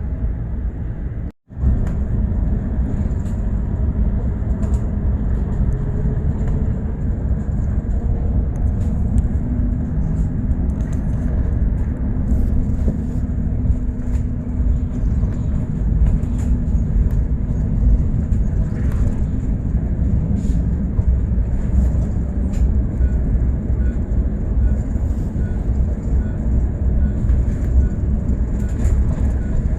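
Bus ride: steady low engine and road rumble of a moving bus, with a brief dropout about a second and a half in. Faint regular ticking comes in near the end.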